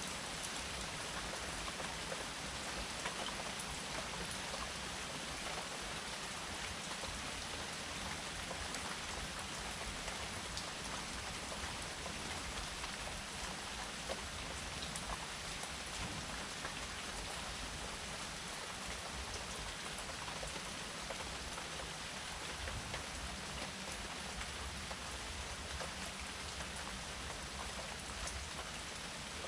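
Steady rain falling, an even hiss with many small drop ticks and no thunder.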